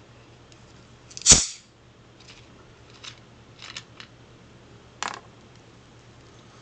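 A Coke being opened: one sharp pop with a brief hiss of fizz about a second in, followed by several much fainter clicks.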